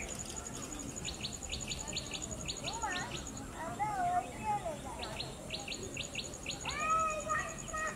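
Birds calling: two runs of quick, evenly repeated chirps at about four or five a second, with warbling whistled calls between and after them. A steady, fast-pulsing high insect buzz runs underneath.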